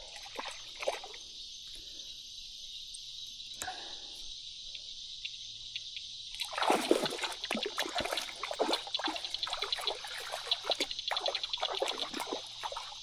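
A hooked fish splashing at the creek's surface as it is reeled in, with irregular splashes starting about halfway through. A steady insect chorus runs underneath.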